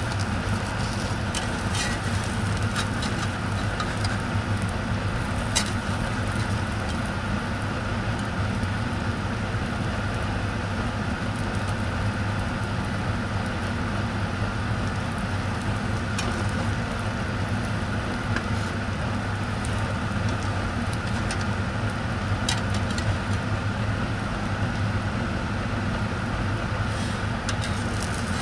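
Egg, cheese and bread frying in a non-stick pan: a steady sizzle over a constant low hum, with a few sharp clicks of the metal spatula on the pan.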